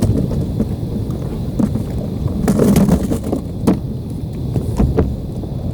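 Wind rumbling on the microphone over water moving around a fishing kayak, with scattered knocks and clicks of the camera and rod being handled; a louder cluster comes about two and a half seconds in.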